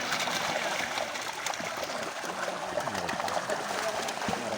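Water steadily trickling and running, with small splashes and drips.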